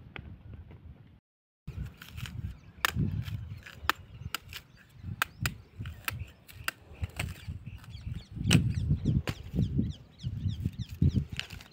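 Machete blade chopping into a palmyra palm fruit: a series of sharp, irregular knocks and cracks as the fibrous husk is hacked open to free the ice-apple kernels.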